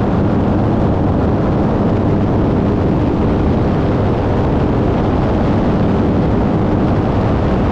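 Light single-engine propeller airplane in flight, its engine and propeller making a loud, steady drone with a low hum mixed with rushing air.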